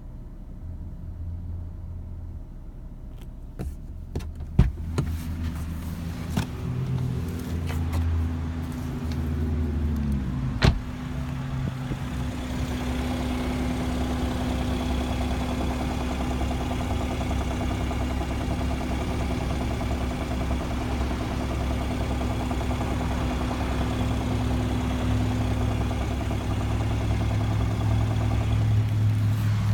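2017 BMW 340i xDrive's turbocharged straight-six running, with two sharp knocks about four and a half and ten and a half seconds in, and a steady, louder engine note from about twelve seconds on. The car has a knocking noise that shows up when the fuel tank is below a quarter full.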